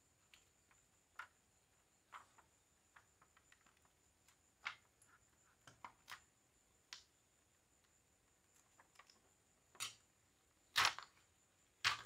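Scattered light clicks and taps of a laptop motherboard and its plastic chassis being handled and pried apart, with two sharper, louder clicks near the end.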